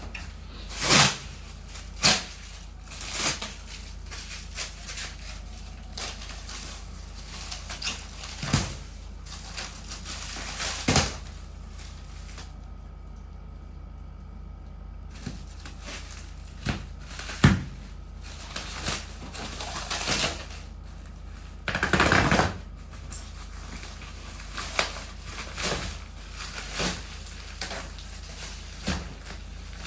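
Cardboard shipping box being handled and opened: scattered knocks, taps and clicks, with a longer rasping burst about two-thirds of the way through.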